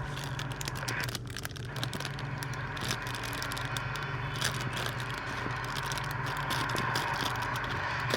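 Irregular crackling and scraping clicks of something being handled, over a steady low hum.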